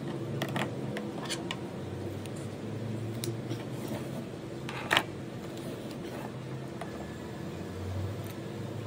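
Sharp plastic clicks and taps of a marker being capped and handled at a fabric marker pouch: a few light clicks in the first second and a half and one louder click about five seconds in. A steady low hum runs underneath.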